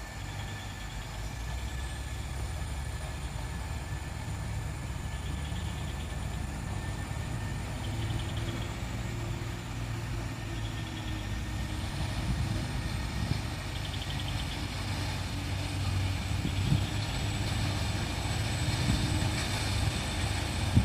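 Diesel engine of a heavily loaded Mitsubishi Fuso truck running under load as it works through deep mud. It is a steady low drone that grows louder toward the end, with a few knocks in the last seconds.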